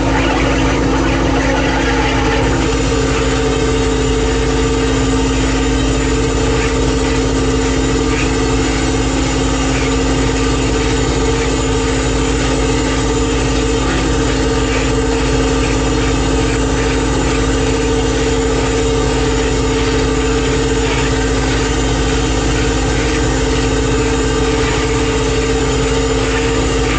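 Fishing boat's engine running steadily, a constant hum with no change in speed.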